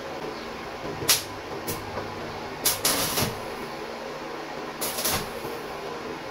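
Arc welder laying the first tack weld on thin steel sheet: several short bursts of arc hiss, the longest about half a second near the middle, over a steady hum.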